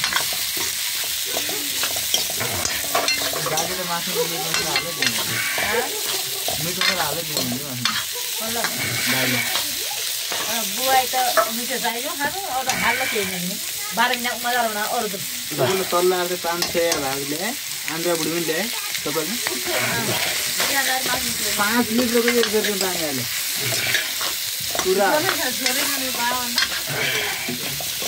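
Broiler chicken pieces sizzling as they fry in hot oil in a wok, with a steady hiss. A metal spatula stirs them, scraping along the pan in repeated strokes.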